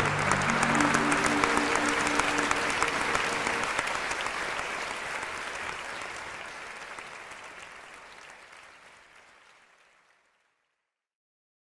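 Audience applauding, with a few held musical notes under it for the first few seconds. The applause fades steadily away to silence about ten seconds in.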